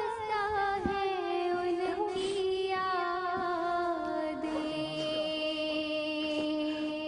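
A single voice singing a naat, drawing out one long note that slides slowly down in pitch and then holds steady for the last few seconds.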